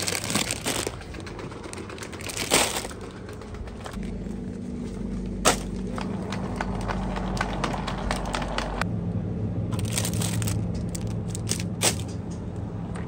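Plastic pasta bag crinkling as it is picked up from its cardboard box. A steady low hum from supermarket refrigerated cases follows, its pitch shifting once, with scattered clicks and plastic rustles from the carried shopping basket.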